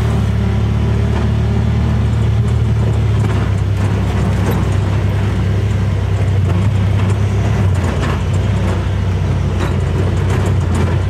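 Honda Pioneer 1000-5 side-by-side's parallel-twin engine running steadily while driving a rocky gravel trail, heard from inside the cab, with tyres crunching over stones and scattered clicks and rattles.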